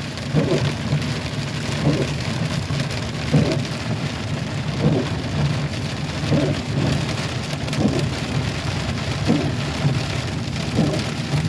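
Heavy rain on a pickup truck, heard from inside the cab, with the windshield wipers sweeping about every one and a half seconds; the new wipers squeak on each pass even in the pouring rain.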